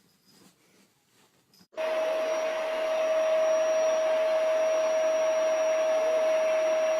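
A motor-driven household appliance running: a steady rushing noise with a constant whining tone, switching on abruptly about two seconds in.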